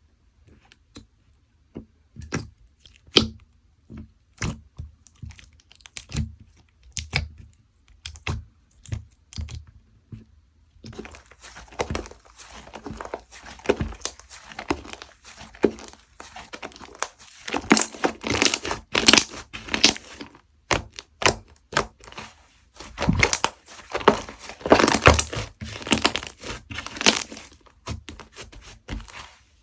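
Clay-mixed slime being handled: scattered sticky clicks and pops at first, then from about a third of the way in a denser crackling as the slime is stretched and squished.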